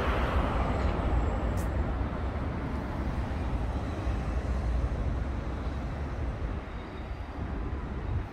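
Street traffic: a passing vehicle fades away over the first few seconds, leaving a steady low traffic rumble.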